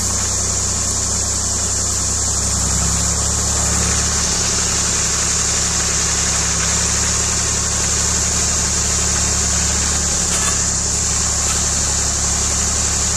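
Massey Ferguson 240 tractor's three-cylinder diesel engine running steadily at low revs, its note shifting slightly about four seconds in and again about ten seconds in. A steady high hiss sits above it.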